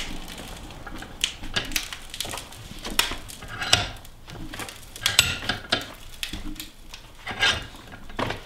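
Bench vise being cranked tight on an old mobile phone: the vise's sliding handle bar clinks and clanks against its ends as it is turned, with sharp knocks and cracks at irregular intervals as the jaws squeeze the phone.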